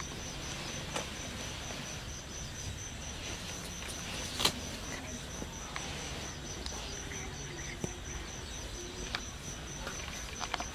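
Crickets chirping steadily in the background, a high, evenly pulsed trill. Scattered soft clicks are heard over it, with one sharper click about four and a half seconds in.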